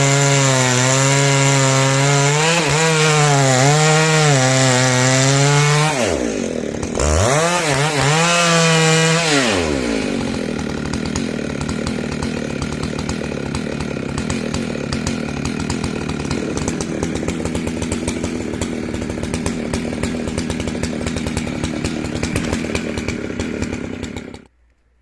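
Large two-stroke chainsaw cutting through hard dry beech, its engine pitch sagging and recovering under load. About six seconds in it drops away and revs back up. From about ten seconds it runs on in a busier, denser tone, then cuts off abruptly near the end.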